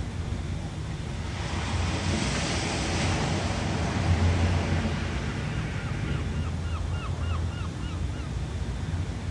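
Ocean surf: a wave breaks and washes in with a rising hiss about two seconds in, over a steady low rumble of the sea. In the second half a bird gives a quick string of short, repeated chirps, about three a second.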